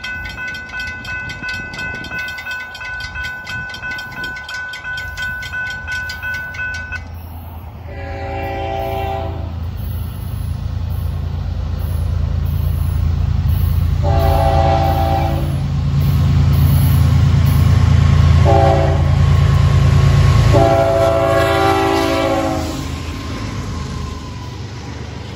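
Railroad crossing bell ringing with a steady repeating tone for about the first seven seconds. Then a Florida East Coast diesel freight train approaches, and its lead locomotive's air horn sounds the grade-crossing signal: long, long, short, long. Under the horn, the low rumble of the diesel locomotives grows and is loudest as they pass, then eases near the end.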